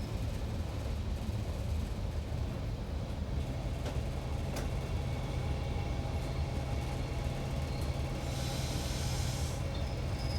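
Diesel railcar running steadily, heard from inside the driver's cabin: a constant low engine and track rumble with a few light clicks, and a short hiss a little past eight seconds in.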